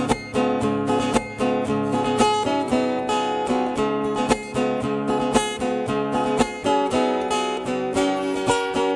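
Acoustic guitar strummed in a steady rhythm, chords with no singing: the instrumental close of a hymn.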